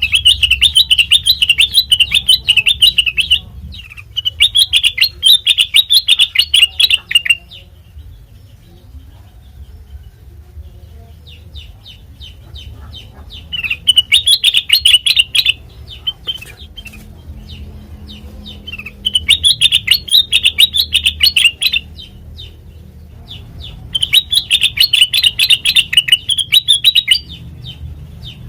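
Kutilang mas bulbul singing in five bursts of fast, rapidly repeated chattering notes, each two to three seconds long, with pauses between. A steady low hum lies underneath.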